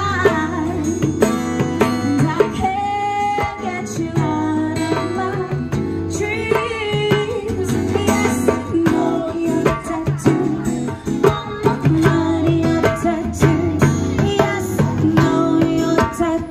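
Live acoustic music: a woman singing into a microphone over an acoustic guitar and a hand drum struck with bare hands, the drum strokes frequent and sharp.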